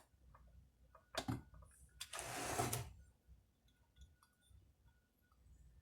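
Hands handling chainsaw engine parts: a light click about a second in, then a rustling scrape lasting about a second.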